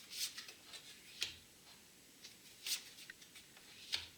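Tarot cards being drawn from the deck and laid down: soft rustles of card sliding on card, with two sharp snaps, one about a second in and one near the end.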